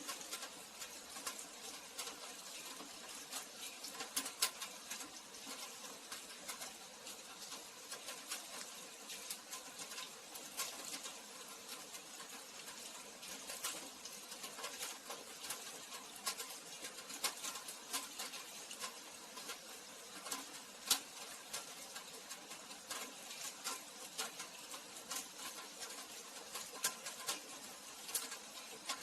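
Steady rain: an even hiss with a dense, irregular patter of individual drops striking hard surfaces.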